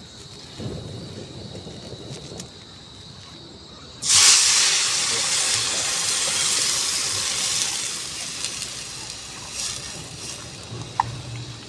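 Sudden loud hiss of steam from the noodle pot over the wet-wood cooking fire, starting about four seconds in and slowly fading.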